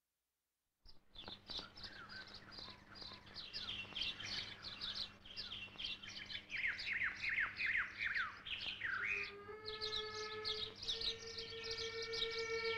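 Many birds chirping and singing in dense, overlapping calls with quick falling whistles, starting suddenly about a second in after silence, over a low steady hum. About three quarters of the way through, a held musical note with overtones comes in and steps slightly in pitch.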